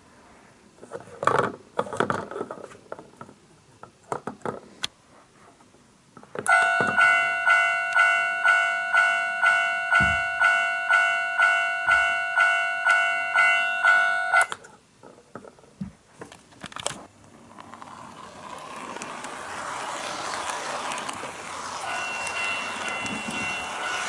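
Electronic warning chime of a toy railway level crossing, repeating about twice a second for about eight seconds and cutting off suddenly, while its barrier is down. Before it come a few clicks of the toy being handled, and near the end an HO-scale model train runs on the track, its running noise building up steadily.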